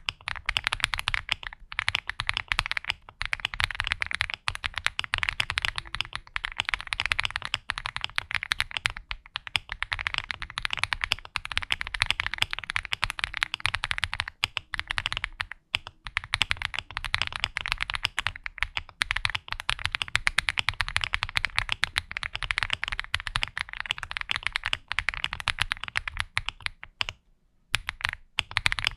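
Typing test on an Akko MOD007 V3 custom mechanical keyboard with PBT keycaps: fast, continuous key strokes in long runs with a few short pauses. The board is tuned, with stabilizers tuned and a force break mod, and described as foamy and bouncy with no hollowness.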